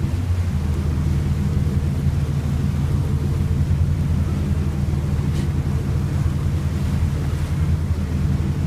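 Boat engine running steadily underway, a loud low drone, with water rushing past in the wake.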